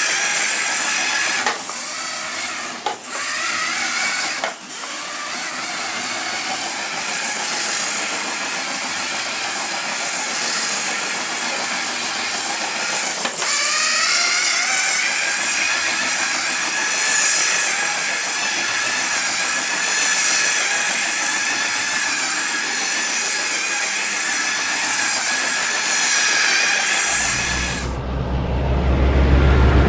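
LEGO 9-volt electric train running on plastic track: a steady hiss with a motor whine on top, the whine rising in pitch about halfway through. Near the end a loud low hum comes in and the hiss cuts off.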